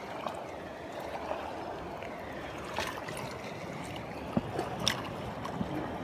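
Steady rush of flowing stream water, with a few short sharp ticks.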